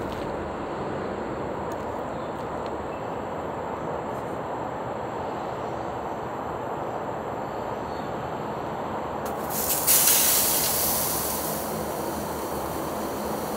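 A slice of pork belly laid on the hot aluminium plate of a disposable charcoal grill, starting a sudden loud sizzle about ten seconds in that fades to a softer sizzle over a couple of seconds, over a steady low hiss.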